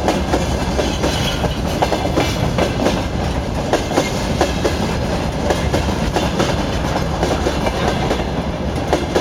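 Freight train rolling by, its wagon wheels clacking over rail joints in a quick, uneven run of clicks over a steady rumble.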